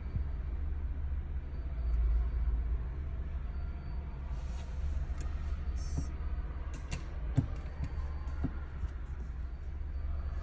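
Low steady rumble inside a car cabin, with a few light clicks between about six and eight and a half seconds in.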